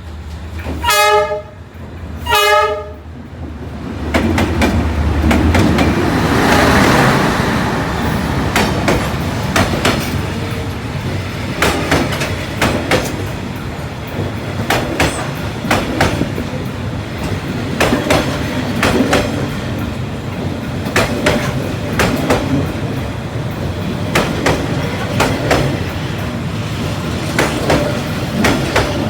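A train's horn sounds two short blasts, then the train passes close by: a steady rumble of the cars with a long, irregular run of sharp clacks as the wheels cross rail joints.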